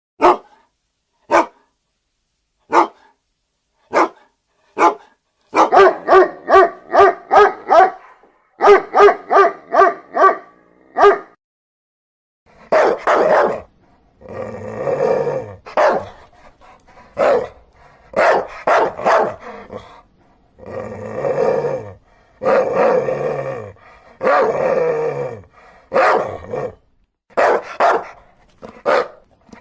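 Dogs barking: first single sharp barks at spaced intervals, then a quick run of about three barks a second, then longer, deeper barks repeated through the rest.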